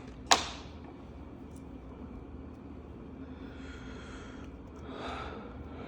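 A single sharp click about a third of a second in, then the faint scratching of a felt-tip marker colouring on paper.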